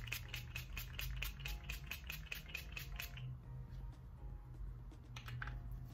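Fine-mist pump bottle of facial spray spritzed over and over in quick succession, about six or seven short hisses a second for roughly three seconds, then a few more spritzes near the end.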